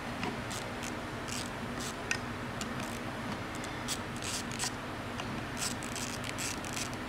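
Irregular light clicks and rustling of small parts being handled and sorted by hand, over a steady low hum.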